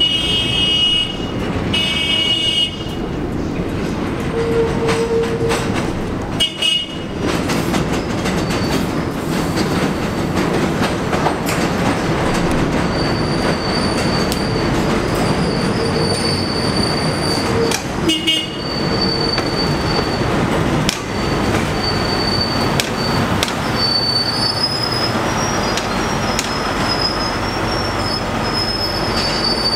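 NYC Subway track geometry car TGC4 running into and through the station: a steady rumble of wheels on rail, broken by short horn blasts, two at the start, one about six seconds in and one around eighteen seconds. From about halfway on, a high wheel squeal comes and goes.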